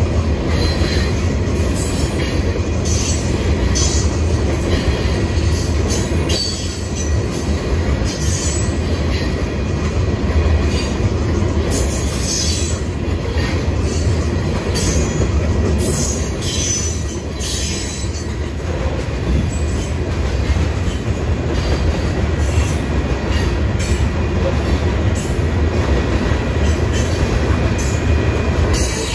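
Loaded covered hopper cars of a freight grain train rolling past at close range, a steady low rumble of wheels on rail with repeated short high-pitched wheel squeals. The train is drifting downgrade, so the mid-train locomotives are not working hard.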